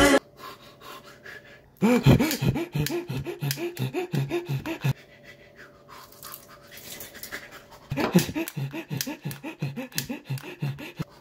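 A man panting hard in quick, voiced breaths, about four a second, in two bouts of about three seconds each with a quieter pause between them.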